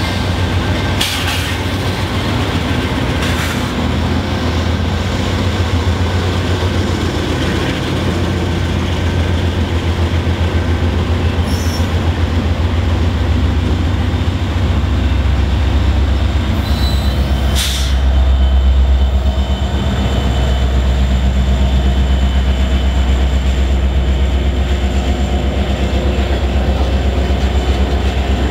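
A string of Norfolk Southern GE and EMD six-axle diesel-electric freight locomotives passing close by: a loud, steady, deep engine drone with the rumble of wheels on rail. A few short sharp clanks or squeals from the wheels come through, one of the loudest a little past halfway.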